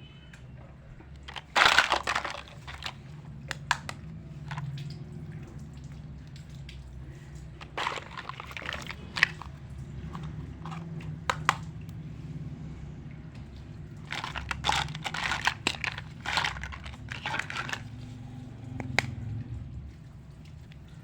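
Small plastic toy kitchen pieces and their packaging handled up close: scattered bursts of clicks, taps and crinkling, the loudest about two seconds in, over a steady low hum.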